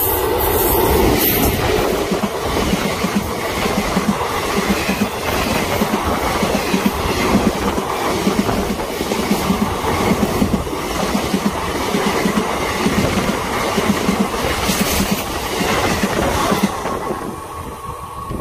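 Electric-hauled passenger train passing close by at speed: a loud rumble with a steady clickety-clack of coach wheels over rail joints, about two knocks a second, dying away near the end as the train goes by.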